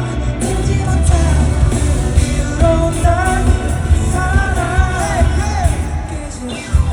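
K-pop song performed live through a concert PA, with a heavy bass beat and a voice singing the melody; the beat drops out briefly near the end.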